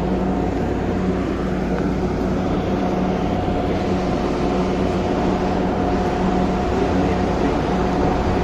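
Light-rail train heard from inside its driver's cab as it pulls away from a station: a steady electrical hum with a few held tones over even running noise.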